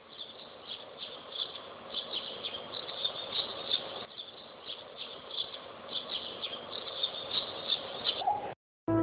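Outdoor ambience with many short, high-pitched chirps coming irregularly over a soft hiss, cutting off abruptly shortly before the end.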